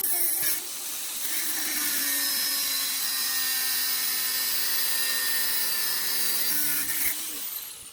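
Angle grinder running under load as it cuts with a homemade attachment, a steady high whine with rasping noise, then winding down with a falling whine near the end.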